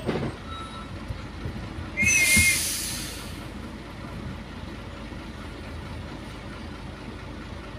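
Truck's air brake letting off a loud hiss about two seconds in, with a brief squeal at its start, fading away over about a second. Under it, the truck's diesel engine idles steadily in the cab.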